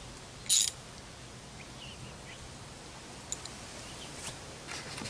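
Quiet outdoor background with a few faint bird chirps, broken about half a second in by one short, sharp rattle of metal clicks.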